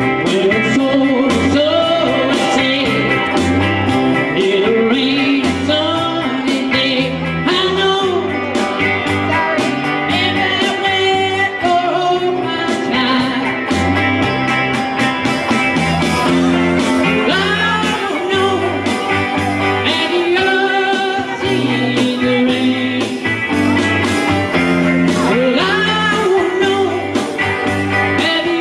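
A man singing a rock-and-roll song into a microphone while playing an electric guitar, amplified through a PA, over a steady beat with a moving bass line.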